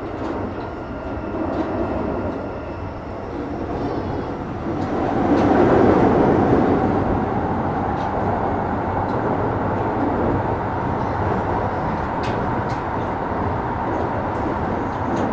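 Keikyu 1000 series (1890 subseries) electric train running, heard from inside the car: a steady rumble of wheels on rail that swells about five seconds in. A steady whine joins at that point, and there are a few sharp clicks.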